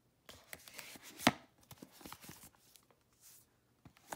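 Paperback manga volumes being handled against a cardboard box-set slipcase: scraping and rustling with small knocks, and one sharp knock about a second in.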